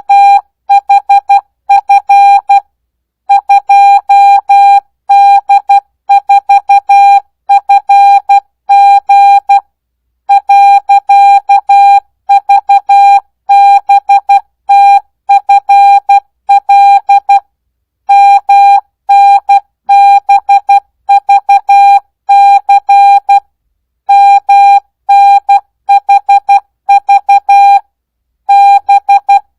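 Morse code (CW) practice tone: a single steady tone keyed on and off in dots and dashes at 12 words per minute, without Farnsworth spacing, with short pauses between words.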